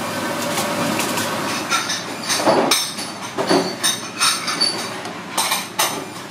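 Chef's knife chopping through raw abalone onto a plastic cutting board: a run of sharp knocks, about two a second, beginning about two seconds in, over a steady kitchen hiss.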